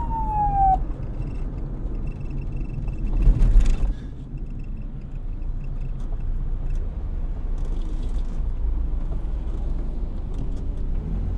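A police siren's last falling wail cuts off within the first second, leaving a steady low rumble of road traffic. A brief louder rush passes about three seconds in.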